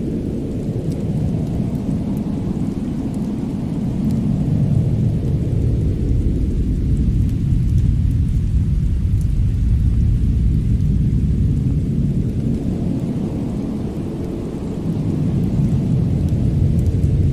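Winter wind and fireplace ambience: a deep, continuous rumble that swells and ebbs in slow waves, with faint crackles from the fire on top.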